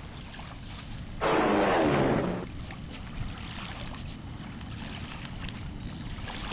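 Steady wind and water noise, broken about a second in by a loud sound just over a second long whose pitch falls in steps.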